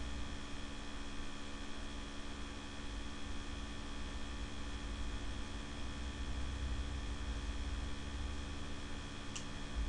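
Laptop cooler fan humming steadily with an even hiss, picked up by a very sensitive microphone. A brief click sounds near the end.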